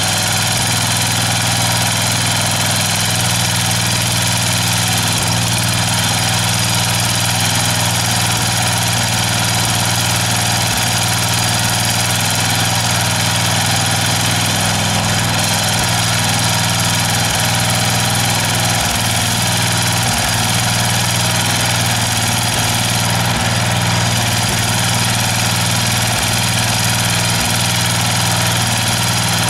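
Small single-cylinder engine of a Wolf-Garten riding mower running steadily at an even speed during a test run, with no change in pitch.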